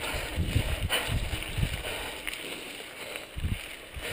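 Wind buffeting the microphone of a helmet-mounted camera on a mountain bike descending a dirt singletrack, in irregular low gusts over tyre and trail noise, with a few sharp clicks from the bike.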